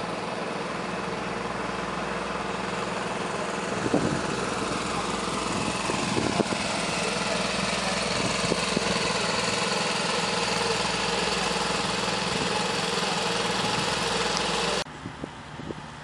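Diesel engines of heavy construction machinery running steadily, with a few knocks about four and six seconds in. Near the end the sound drops abruptly to a quieter engine hum.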